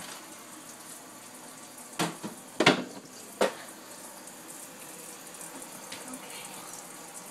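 Kitchen tap running steadily into a stainless-steel sink as a cup is rinsed under it. Three sharp knocks come between about two and three and a half seconds in; the middle one is the loudest.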